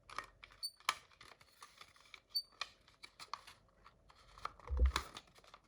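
Plastic housing of a Kidde Nighthawk smoke and carbon monoxide alarm being handled and tried against its plastic mounting bracket: scattered light clicks and taps, two short high squeaks, and a dull thump about five seconds in.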